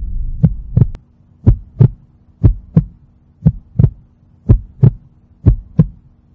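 Heartbeat sound effect: pairs of low thumps, about one pair a second, over a faint steady hum. A low rumble dies away during the first second.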